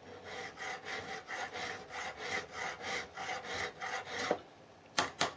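Hand file rasping back and forth across a small metal gib key, filing it down to fit, about three strokes a second; the filing stops after about four seconds. Near the end come two sharp knocks.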